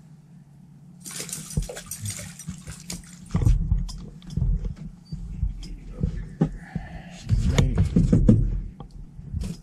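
Water splashing, with irregular knocks and thumps, while a just-caught pike is handled and unhooked. The splashing and thumping come loudest in two spells, about three seconds in and again near the end.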